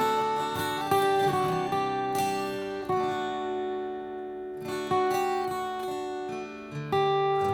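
Background music: acoustic guitar strummed and plucked, chords changing about every second or two.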